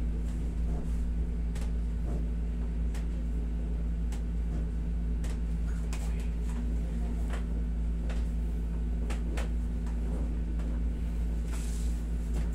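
Steady low hum of a window-type air conditioner running, with scattered faint clicks throughout.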